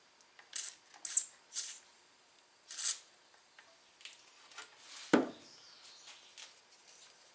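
Several short hisses of a WD-40 aerosol can sprayed in quick spurts onto the push mower's tight-turning recoil starter, lubricating it, then a single sharp knock about five seconds in.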